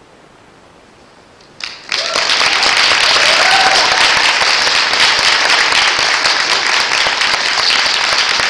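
After about a second and a half of quiet, an audience suddenly breaks into loud, sustained applause, with a few voices cheering in it.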